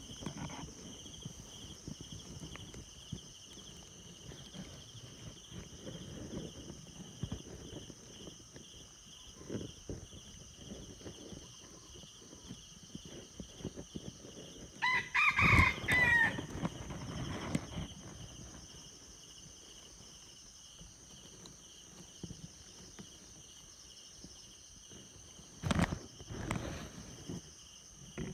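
Red junglefowl crowing once, about halfway through, over a steady high chorus of insects. Near the end comes a single sharp shot, with a softer knock just after.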